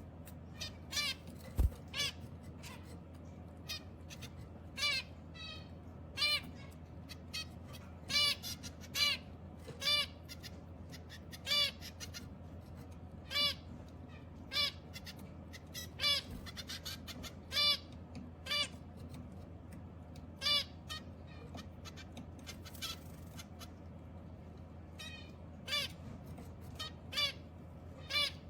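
Zebra finches calling: short, nasal calls, each with several even overtones, repeated irregularly about once a second over a steady low hum.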